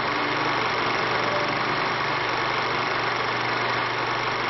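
Steady mechanical running hum under an even hiss, unchanging throughout.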